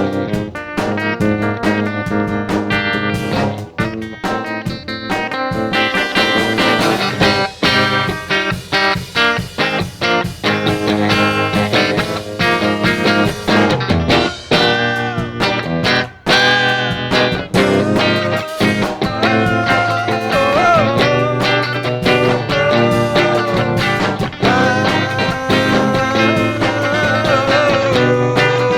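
Live folk-rock music led by guitar, with quick plucked notes at first and held notes that slide up and down in the second half.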